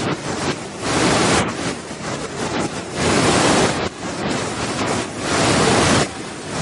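Waterfall rushing: a loud, steady wash of falling water that swells and eases in surges every second or two.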